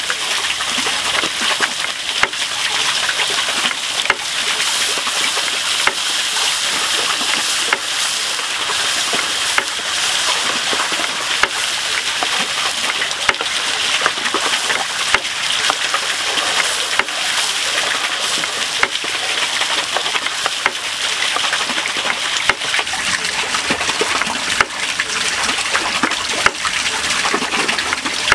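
Sauce sizzling and bubbling in a frying pan over a wood fire: a steady hiss with many small pops and crackles.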